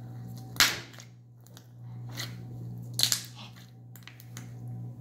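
Slime being pressed and squished by hand, giving off sharp clicks as trapped air pops out: a loud click about half a second in, a softer one a little after two seconds and another at about three seconds.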